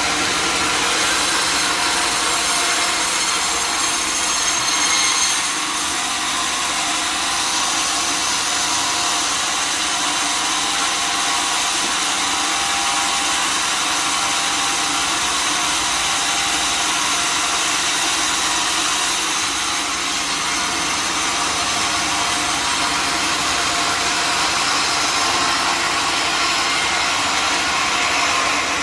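Sawmill saw cutting through a log: a steady, dense, hissing cut that runs without a break.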